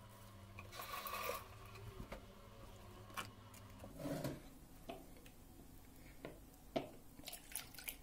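Quiet handling of plastic bowls and a steel sieve on a stone countertop: a few faint knocks and clicks, over a low steady hum that stops about halfway through.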